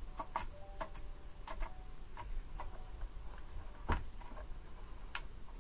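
Irregular light clicks and taps of a screwdriver and small parts being handled against a mini lathe's end cover, about eight in all, with one sharper knock nearly four seconds in.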